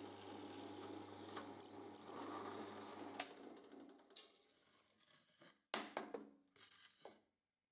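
Benchtop drill press running while a bit drills into wood, with a brief high-pitched squeal about a second and a half in. About three seconds in there is a click and the motor hum winds down and fades, followed near the end by a few wooden knocks as the drilled board is handled on the drill press table.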